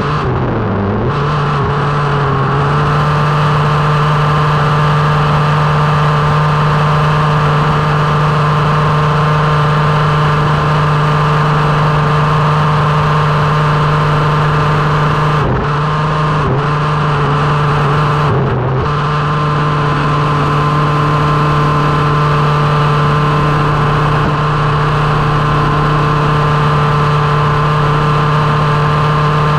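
The small two-stroke engine of a 1/5-scale gas RC buggy running hard at a high, steady pitch. The note climbs in the first couple of seconds as it accelerates, then drops and picks back up in three short throttle lifts a little past halfway.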